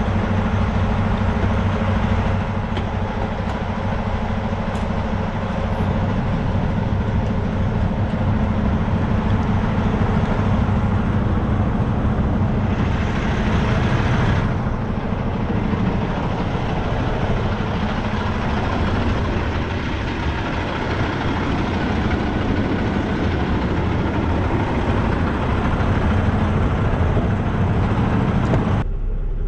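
Semi-truck diesel engine idling steadily close by, with a brief rush of hissing noise about halfway through.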